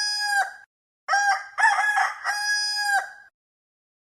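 Rooster crowing: the end of one cock-a-doodle-doo, then a complete second crow starting about a second in, with its last note held long.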